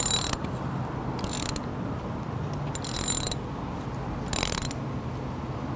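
Hand ratchet with a 7/32 Allen socket clicking in four short runs, about a second and a half apart, as countersunk Allen head screws on a tow-truck wheel lift are snugged down one after another. A steady low hum runs underneath.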